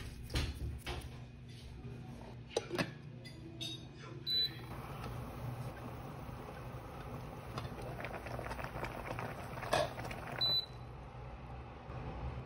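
Induction cooktop beeping twice, a short high beep about four seconds in and another about ten seconds in. Between the beeps, water boils with a steady hiss in a lidded steel pot. A few sharp clicks and knocks come first, and the loudest knock falls just before the second beep.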